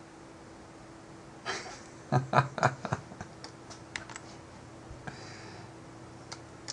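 Computer keyboard keys clicking in a quick, irregular run for about two and a half seconds, as typed text is deleted from a box, followed by a few lone clicks.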